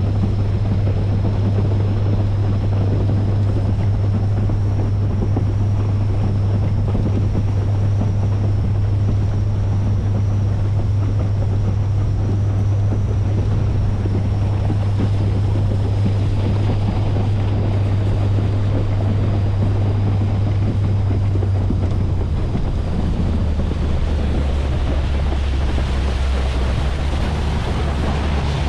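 Motorboat engine running steadily at cruising speed, with wind buffeting the microphone and water rushing past the hull. About 22 seconds in the engine drops to a lower pitch as the boat throttles back.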